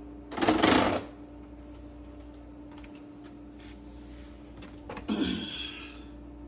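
Two brief bursts of clattering and scraping as faucet parts are handled, one about half a second in and one about five seconds in, over a steady low hum.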